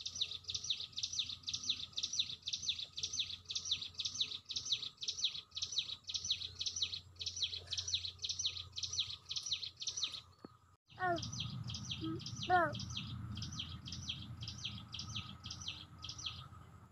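A bird repeats a high chirp about four times a second. About two-thirds through, the sound cuts out for a moment. After the break the chirping carries on over a low rumble, and two short, lower calls rise and fall in pitch, the second one the loudest moment.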